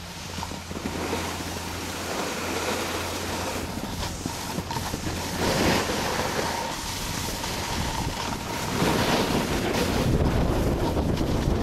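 Wind buffeting the camera microphone in gusts: a rushing, rumbling noise that grows heavier about two-thirds of the way in.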